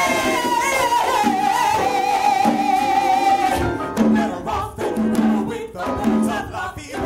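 A woman's solo voice holding one long sung note with vibrato over piano accompaniment; a little over halfway through the voice stops and the piano carries on alone with repeated chords.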